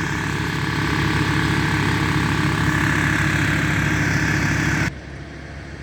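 Large wood chipper's engine running steadily at a loud, even level. The sound drops away abruptly about five seconds in, leaving a fainter machine hum.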